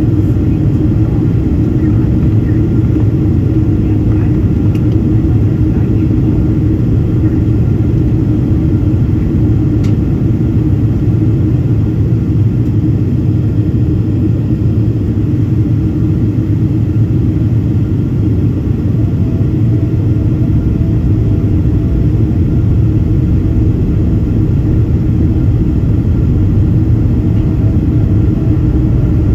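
Steady cabin noise of a Boeing 767-400ER on approach with its flaps extended: its GE CF6-80C2 engines and the airflow make a loud, even rumble with a steady hum, heard inside the cabin.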